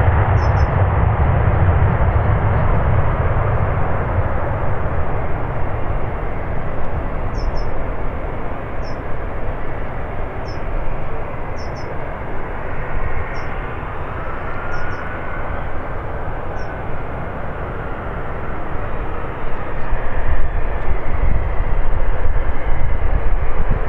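Boeing 787 Dreamliner's jet engines on climb-out after takeoff, a steady broad rumble heard from behind the departing aircraft. It eases off through the middle and grows louder and deeper near the end. Faint high chirps sound every second or two.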